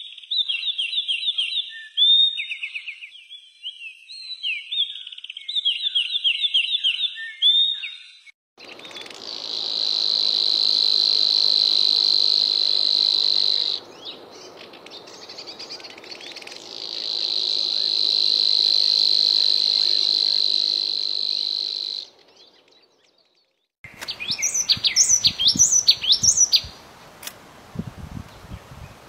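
Wild songbirds calling. First comes a rapid series of high chirps and trills, then a long steady high-pitched buzz that stops once for a few seconds before resuming, and after a short gap, a quick run of whistled notes that rise and fall.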